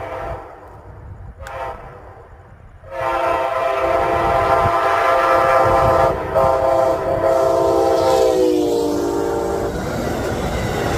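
Amtrak passenger train passing with its locomotive horn blowing a long multi-tone blast from about three seconds in, broken briefly once. The horn drops in pitch as the locomotive goes by, then gives way to the rumble and clatter of the passing cars.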